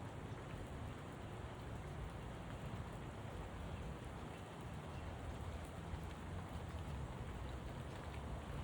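Steady rain falling, an even patter with no breaks.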